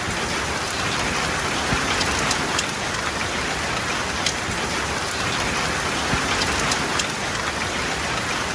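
Heavy rain falling steadily, a dense even hiss with scattered sharper ticks of single drops striking a surface.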